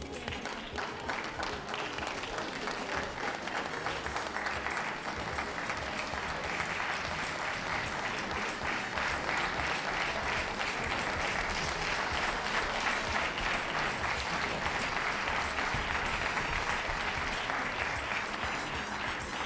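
Audience applauding steadily, growing somewhat louder through the middle and easing slightly toward the end.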